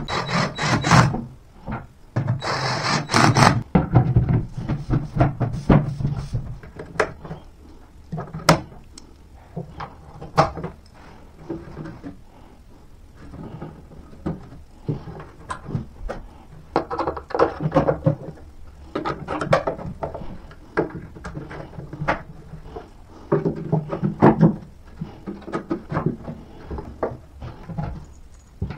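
Particleboard panels of an IKEA Alex drawer unit being handled and fitted together, with scraping and rubbing, scattered sharp knocks, and a louder rasping stretch in the first few seconds.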